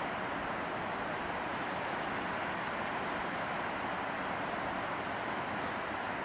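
Steady outdoor rushing noise, even and unchanging throughout, with a few faint high chirps above it.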